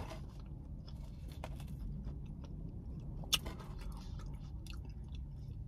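Close-up chewing and mouth sounds of a person eating a chicken pot pie with a flaky crust, with faint small ticks and one sharp click a little past three seconds in. A low steady hum runs underneath.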